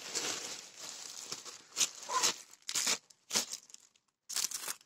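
Plastic packaging crinkling as it is handled: a continuous rustle, then several short separate crinkles.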